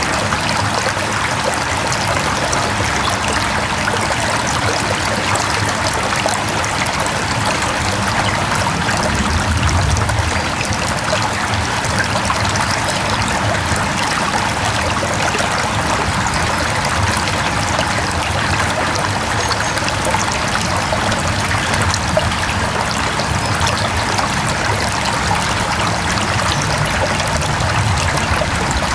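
Mountain stream running over rocks: a steady rush of water with fine trickling and splashing.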